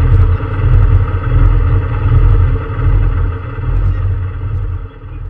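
Peugeot 306 S16 rally car's four-cylinder engine running steadily at low revs, heard from inside the stripped cabin with a deep rumble and light rattles, fading out near the end.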